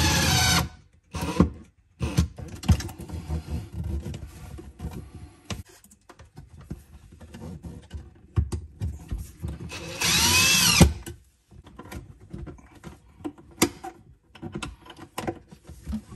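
Hilti cordless drill-driver driving screws: one short run of the motor ending about half a second in and another lasting about a second around ten seconds in, its whine rising and falling each time. Clicks and knocks of handling come between the runs.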